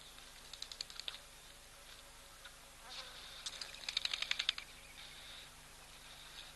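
Wild animal sound: two short, rapid rattling trills of high clicks, the second about three seconds later, longer and louder.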